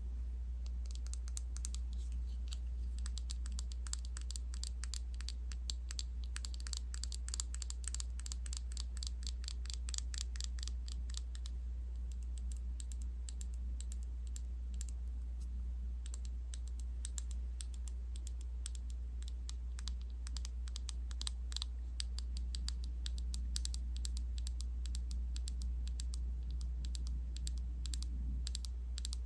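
Close-miked skincare ASMR sounds: rapid fine crackling and tapping, dense for the first dozen seconds and then sparser, over a steady low hum.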